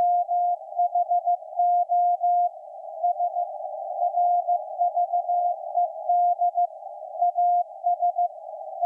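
Morse code (CW) from the maritime coast station KPH, received on shortwave at 12,808.5 kHz: a single steady-pitched beep keyed in dots and dashes, with short pauses between words. It sits over a narrow band of hiss left by the receiver's CW filter.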